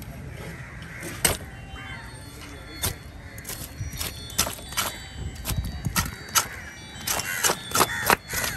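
Irregular sharp knocks and clacks over a steady background din, with a few short harsh calls near the end.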